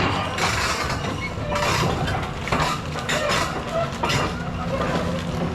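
Komatsu excavator's diesel engine running steadily while its steel tracks clank and squeak as the machine moves, with repeated sharp metallic knocks.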